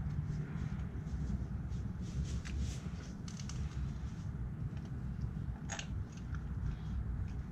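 Small clicks, taps and scrapes of hand tools and parts being handled on the quad, with one sharper click near the end, over a steady low rumble.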